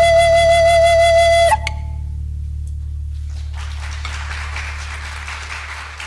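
Native American flute holding a long final note over a low steady drone; the note ends about a second and a half in. Audience applause then rises about halfway through while the drone carries on.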